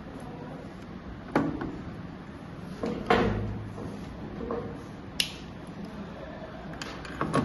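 Handling noises from working the network cable and RJ45 connector by hand: four separate knocks and clicks a second or two apart, the loudest with a dull thud a little over three seconds in.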